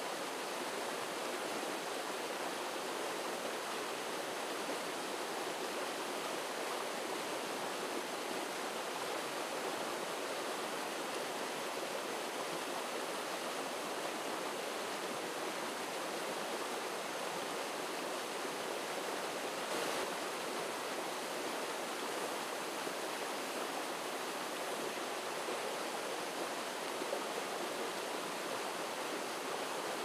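Shallow rocky stream flowing over stones: a steady, even rush of running water.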